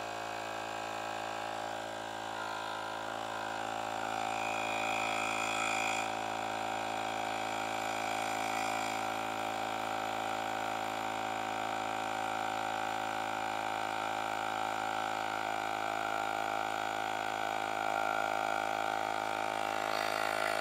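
Portable battery-powered tyre inflator's small electric compressor running with a steady drone. It is pumping up a motorcycle tyre toward a preset 25 psi, and the pressure is still climbing.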